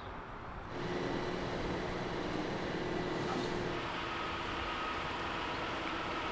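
Steady outdoor vehicle noise with a faint held hum, getting louder just under a second in and then staying even.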